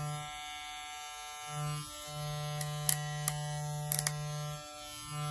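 TPOB Phantom cordless hair clipper running: a steady, low hum that is not loud, its lowest note coming and going. A few faint clicks sound between about two and a half and four seconds in.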